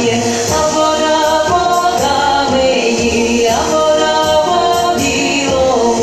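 Music: a song sung by several voices, moving through long held notes.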